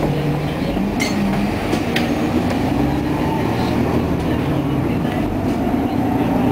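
Diesel bus heard from inside the cabin while under way: the Cummins ISL9 engine and ZF EcoLife automatic transmission of a 2012 Nova Bus LFS run with a steady hum whose tone climbs a little over the stretch. There are a couple of light rattles from the body.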